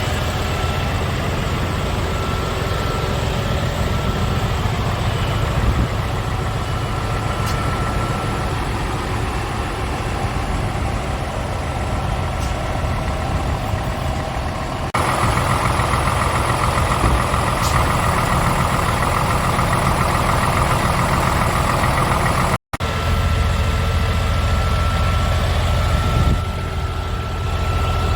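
Scania R500 truck's 13-litre straight-six diesel engine idling steadily. The sound changes abruptly about halfway through and cuts out for a moment about three-quarters of the way through.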